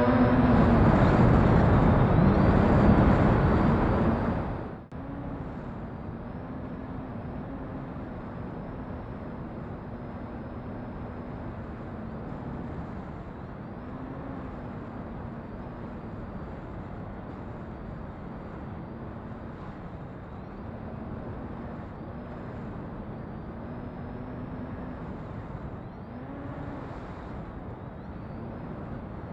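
Electric motors and propellers of a FoxTech H-Wing VTOL model plane, heard from a camera mounted on the airframe. The motors run loud for the first few seconds, then drop off abruptly about five seconds in to a quieter steady hum whose pitch wavers slightly.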